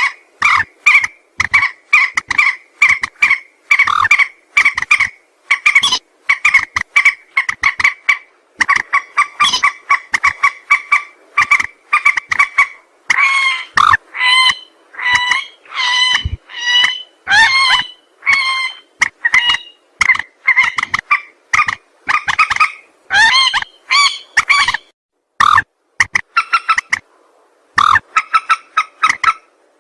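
Mandar sawah, a rail, calling in a rapid run of short, clipped notes, about two or three a second. The notes come as one steady pitched tone, then some bend up and down in pitch before the run goes back to the flat notes.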